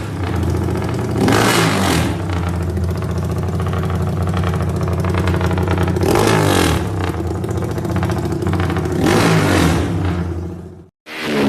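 Modified Yamaha Y15ZR (MX King / Exciter 150) single-cylinder 150cc four-stroke engine idling through an aftermarket exhaust and blipped three times, the pitch rising and falling with each short rev.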